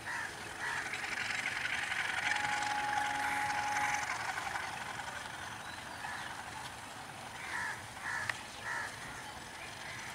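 Diesel locomotive moving slowly through the station, heard as a rushing noise that swells over the first four seconds, with a thin steady whine from about two to four seconds in. A crow caws a few times in the second half, and there is a single sharp click.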